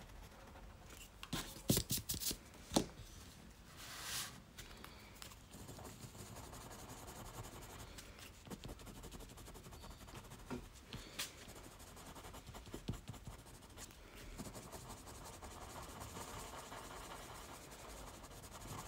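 Prismacolor coloured pencil scratching lightly over Canson Mi-Teintes paper in small, steady shading strokes, with a few sharp ticks about two seconds in.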